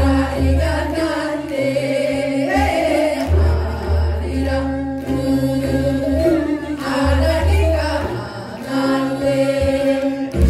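A group of women singing a Korean traditional song together through microphones, over an amplified accompaniment with a steady bass line.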